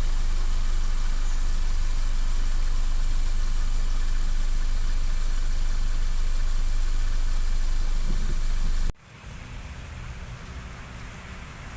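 A vehicle engine idling steadily, a loud low hum. It cuts off suddenly about nine seconds in, giving way to a much quieter steady background.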